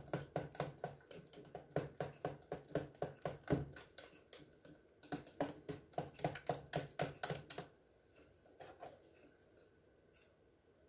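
Wire whisk beating eggs into a cream custard in a metal saucepan, clicking against the pan about four to five times a second. The whisking breaks off briefly a little after three seconds in, picks up again, and stops for good about three quarters of the way through.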